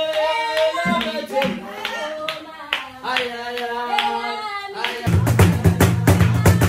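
Voices singing a song together to steady hand clapping. About five seconds in, a heavy low beat joins and the music gets louder.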